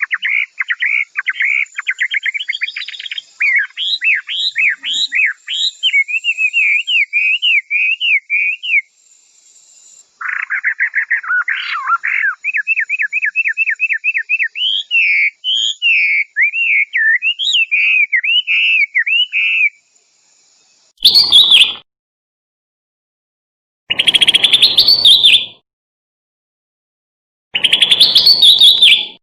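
A songbird singing two long runs of rapid, repeated high chirps and trills, then three loud, harsh bursts a few seconds apart near the end.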